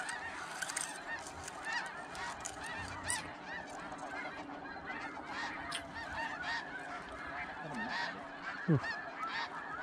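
Dense, unbroken chorus of snow geese calling, many short overlapping honks at once, with one brief low swooping sound near the end.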